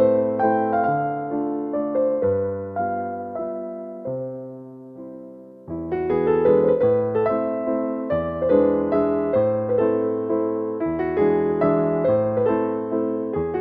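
Slow, gentle piano music, note after note dying away; the playing thins out and fades a little before halfway, then a new phrase comes in.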